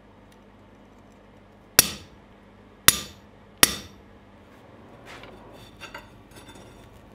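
Three sharp hammer blows on a center punch, each ringing briefly, punching marks into a 6 x 30 mm flat steel bar. Softer metal clinks and scrapes follow near the end as the bar is pushed into the coal forge.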